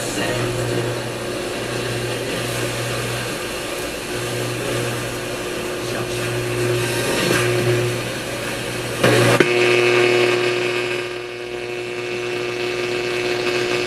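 Magnavox console stereo's AM/FM radio giving off static and hum as its knobs are turned between stations. There is a sharp click about nine seconds in, after which a steady tone holds.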